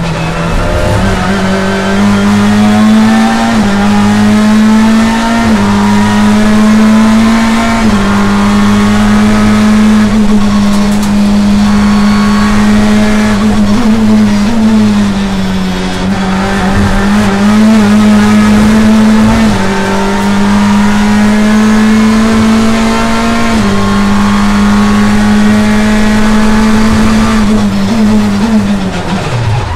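Chevrolet BTCC touring car's turbocharged four-cylinder engine heard from inside the cockpit, running hard near the top of its rev range under full throttle. Its pitch steps a little every few seconds at gear changes, dips briefly around the middle, and falls near the end as the car slows.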